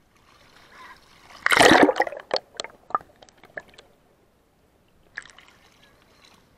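Sea water splashing over a handheld action camera as it is plunged under the surface about a second and a half in, followed by a string of sharp crackling drips and bubbles. After a quiet stretch under water, there is a short splash near five seconds as it comes back up.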